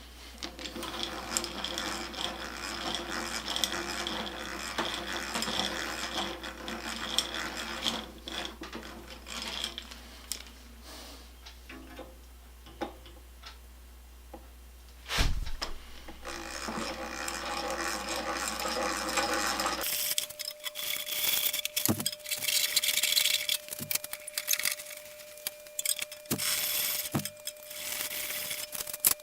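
Hand tools working a wooden box and its metal bands: stretches of steady grinding and whirring, as of boring or driving screws, with scattered clicks and one sharp knock about halfway through.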